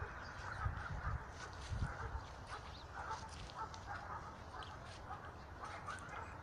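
Birds or farm fowl calling repeatedly in short notes, with a low rumble during the first couple of seconds.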